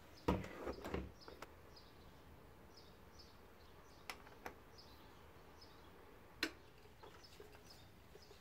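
Front-loading washing machine door pushed shut with a sharp knock, followed by a second knock about a second in; then single clicks of the machine's control-panel buttons around four seconds in and one more click later. Faint high chirping runs underneath.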